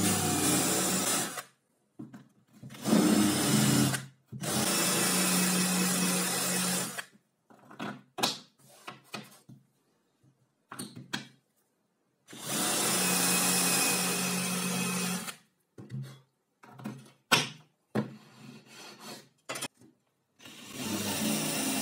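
Cordless drill running in five bursts of about one to three seconds, boring into the laminated board of the tabletop. Between the runs come short clicks and handling knocks.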